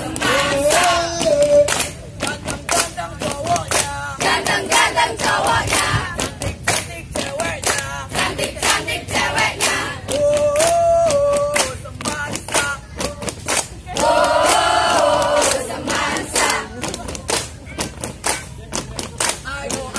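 A group of girls singing and chanting in unison in phrases, over dense sharp hand claps throughout.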